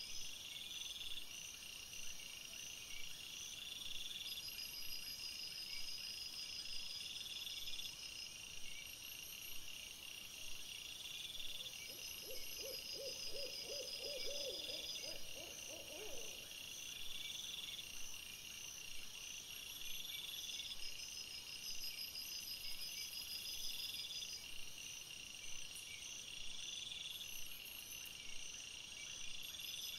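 Night chorus of crickets: a steady high chirring that swells every second or two. About twelve seconds in, a rapid run of a dozen or so low hooting notes lasts some four seconds.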